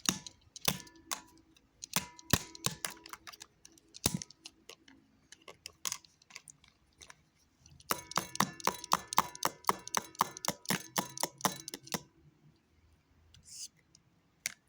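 A string of sharp clicks and knocks from small hard objects being handled, with a fast, dense run of clicking in the middle that has a slight ringing to it.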